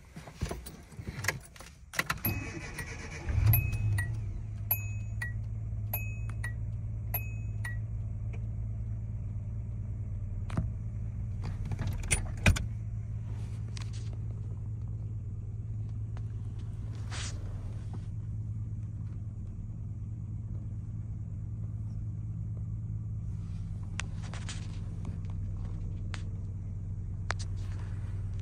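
Keys jangling at the ignition, then a Datsun's starter cranks briefly and the engine catches about three seconds in and settles into a steady cold idle. A run of short repeating beeps sounds for several seconds after the start, and a few clicks come later.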